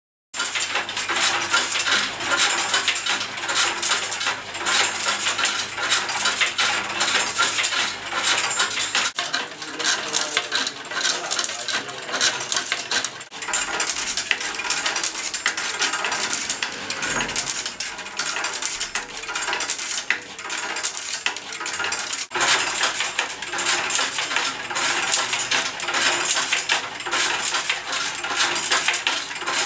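Amplified styrofoam rubbing and scraping: a foam block on a wire rod dragged against a large foam disc, making a dense, continuous crackling, squeaking and rattling texture, with sudden brief breaks about 9, 13 and 22 seconds in.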